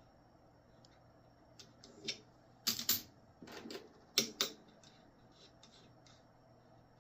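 Coins being handled and set down on a hard surface: a few light taps, then two sharp double clicks about a second and a half apart near the middle.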